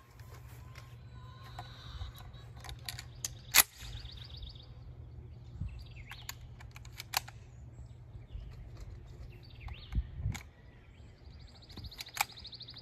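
Scattered metallic clicks and clacks of a Savage 745 12-gauge auto-loading shotgun being handled and loaded, the sharpest clack about three and a half seconds in. A bird trills briefly twice over a low steady rumble.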